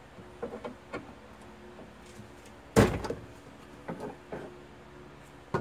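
Clunks and taps of parts being handled against the sheet-metal inner shell of a Ford Bronco door: a few light taps, a loud clunk about three seconds in, and a sharp knock near the end.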